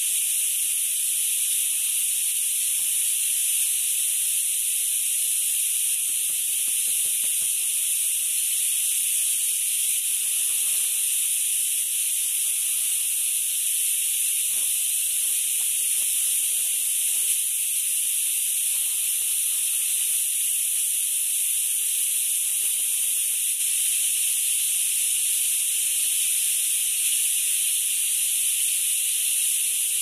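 Continuous, even, shrill drone of cicadas in the forest canopy, never letting up. Faint rustles and a knock or two from camping gear being handled come in around the middle.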